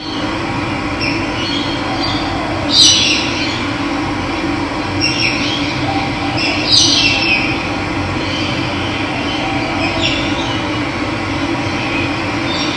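Steady rush of running water, with a bird giving short, falling calls every few seconds, the loudest about three and seven seconds in.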